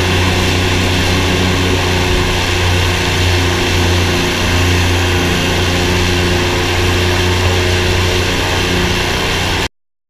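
Airboat's engine and caged rear propeller running at speed, a loud, steady drone with a strong low hum. It cuts off abruptly near the end.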